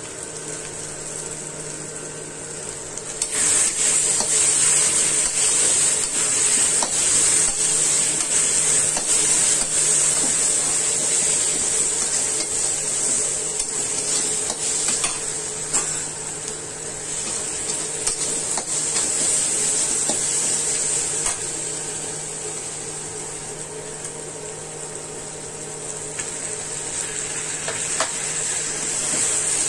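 Onion-tomato masala sizzling in hot oil in a metal pan while a metal slotted spatula stirs and scrapes through it, with scattered clicks of the spatula on the pan. The sizzle turns louder about three seconds in, over a steady low hum.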